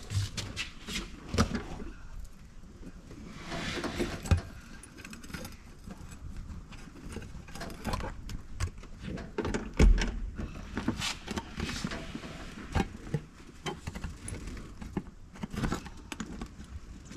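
Irregular metallic clicks, knocks and light rattles as a sheet-metal patch is handled and held against a car's firewall, with one heavier thump about ten seconds in.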